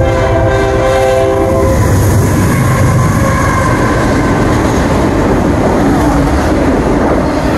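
A BNSF diesel freight locomotive's air horn sounds a multi-note chord and cuts off about two seconds in. The lead locomotives then rush past close by, and the engine and wheel-on-rail noise carries on as a steady loud roar while the autorack cars begin rolling by.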